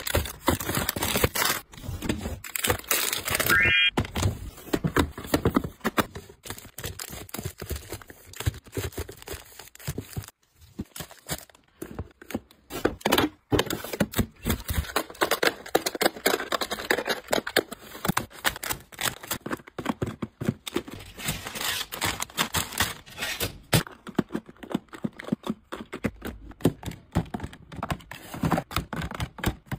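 Handling of plastic-wrapped tissue and wet-wipe packs, crinkling and thudding as they are set down, with plastic storage drawers clicking and phone cases clacking into plastic bins. The sound is a close, busy run of crinkles, taps and knocks, with a brief squeak about three and a half seconds in.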